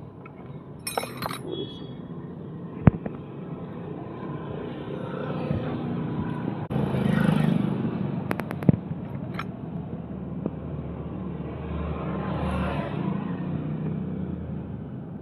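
Motor traffic passing by, swelling up and fading twice, with a few sharp metallic clicks from a spanner being worked on a motorcycle's rocker-cover nut.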